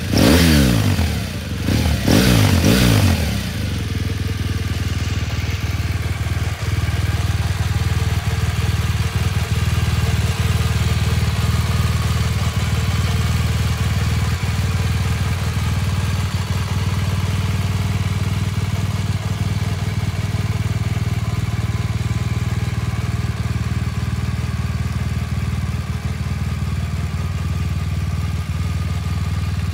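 2017 BMW R 1200 GS Rallye's boxer twin engine, breathing through an Akrapovič slip-on muffler, is revved briefly twice near the start and then settles into a steady idle.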